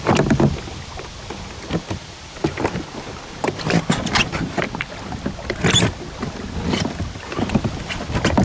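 Irregular knocks, bumps and rubbing on a hollow plastic sit-on-top kayak as someone shifts in the seat, sets the paddle across the cockpit and puts his feet onto the footrests.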